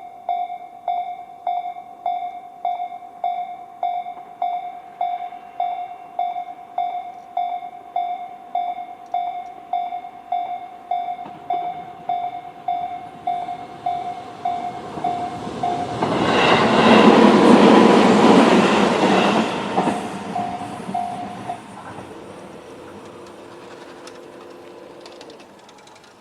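Japanese level-crossing warning bells, Tobu's electronic 'C' chime in its slow-tempo form, ringing about three strokes every two seconds. A Tobu 20400 series electric train passes loudly from about 16 to 20 seconds in, and the bells stop just after it. A faint motor hum follows as the electric crossing gates lift.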